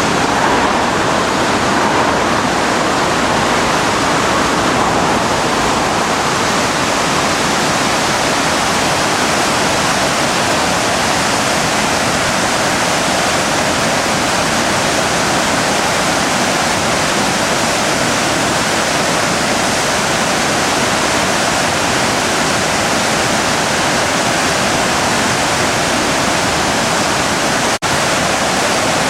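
The Driva river in major flood, a steady, loud rush of fast, high water. There is a momentary dropout near the end.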